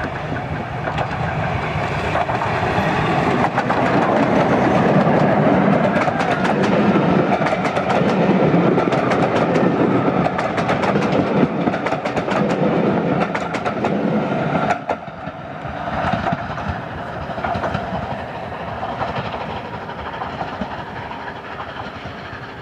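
LNER A4 three-cylinder steam locomotive and its coaches passing close by: the rumble and clatter build as the engine approaches, then many rapid clicks of wheels over rail joints as the coaches go by. The sound drops suddenly about fifteen seconds in and then fades as the train moves away.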